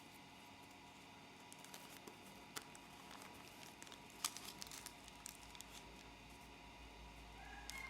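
Faint crinkles and soft clicks of a square of origami paper being handled and creased, in a few scattered sharp ticks rather than a steady sound. A thin whistle-like tone comes in near the end.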